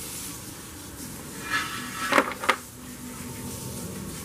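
A few sharp metallic clicks and clinks about halfway through, from hands fitting a hose clamp onto the intake pipe's coupler.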